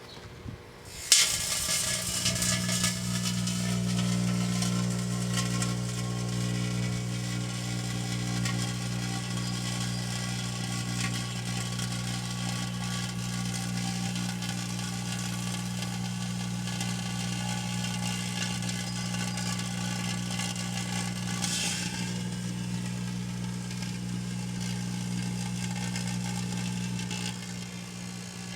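A 700-watt Hamilton Beach microwave oven starts about a second in and runs with a steady low hum, while jumbo sparklers burning inside it fizz and crackle. The crackling flares up briefly about three quarters of the way through, then dies away near the end as the sparklers burn out, leaving the oven's hum.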